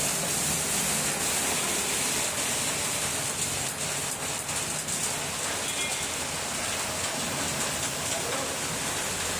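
Rain falling steadily onto a flooded street, a continuous even hiss of drops hitting standing water.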